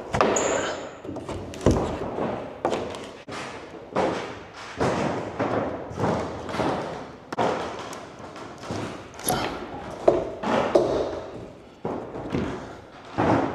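Wooden shipping crate being pried and knocked apart with a pry bar: a string of irregular thuds and knocks as the boards are worked loose.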